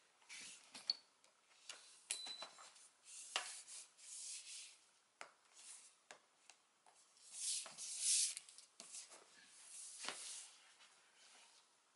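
Handling noise of a large framed poster being lifted, stood up and tipped over on a shaggy rug: soft rubbing and sliding swishes with small clicks and knocks. The loudest swish comes about eight seconds in.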